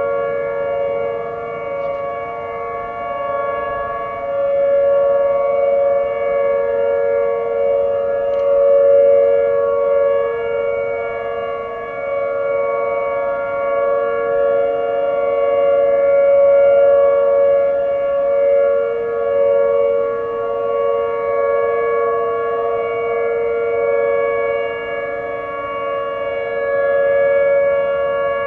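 Several outdoor tornado warning sirens, Whelen 2806 and 2905 among them, sounding a steady alert tone together during a routine test. Their pitches overlap and the level swells and fades every few seconds.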